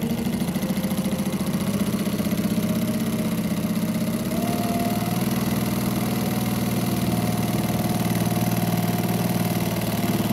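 JUKI LU-1508NS walking-foot industrial sewing machine running steadily at speed, stitching through heavy webbing. Its motor hums under a rapid, even needle-stroke rhythm.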